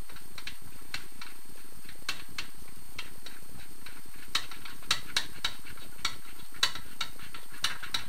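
Light metallic clicks and ticks at an uneven pace, a few a second and sharper in the second half, as a hand tool unscrews the crank bolt of a Scott two-stroke crankshaft.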